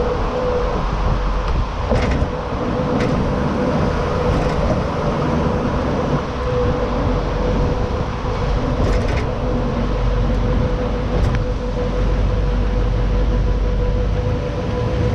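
Duramax LMM 6.6 L turbo-diesel V8 of a Silverado 3500 HD running steadily under way, heard through its stock exhaust and muffler: a deep steady rumble with a thin steady whine over it. A few short clicks come through, about 2, 3, 9 and 11 seconds in.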